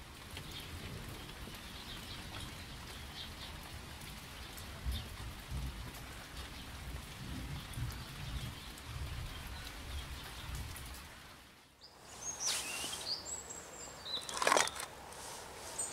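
Steady hiss of rain with faint bird chirps. After a brief dip about twelve seconds in, a bird calls in high gliding whistles, and a sharp rustle comes near the end.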